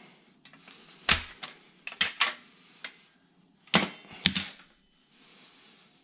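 Sharp metal clicks and clacks, about six of them spread irregularly, from a hand lever tube bender and copper line-set tubing knocking together as the tube is bent and the bender handled.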